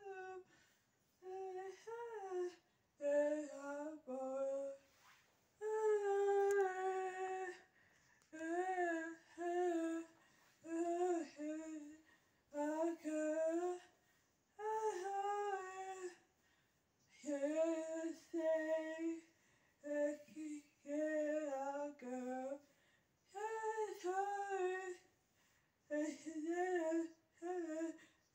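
A high voice humming a wordless tune in short held notes, one to two seconds each with brief pauses between them.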